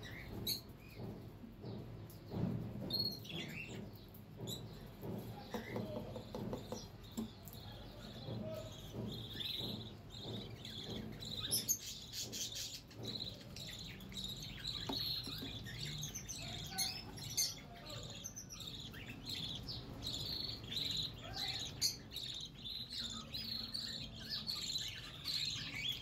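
Parrot nestlings in a wooden nest box cheeping: a busy run of short, high-pitched chirps that grows denser about a third of the way in, with a few sharp knocks as the box is handled.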